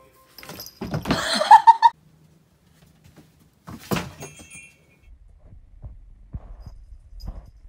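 Loud clatter of hard plastic items knocked onto the floor by a cat, mixed with a person's laughing exclamation, then one sharp knock about four seconds in; after that only a faint low rumble with a few soft thumps.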